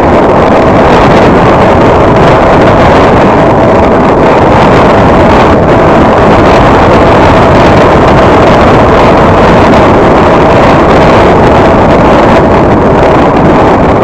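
Car driving along an unpaved dirt road: a loud, steady rumble of tyres and engine, mixed with wind noise on the microphone.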